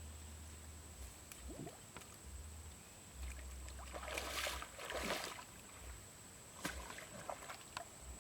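Shallow water sloshing and splashing, with two louder splashes about four and five seconds in and a few small knocks.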